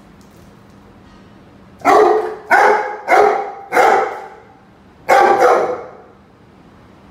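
Rhodesian Ridgeback barking: four loud barks in quick succession starting about two seconds in, then a fifth a second later.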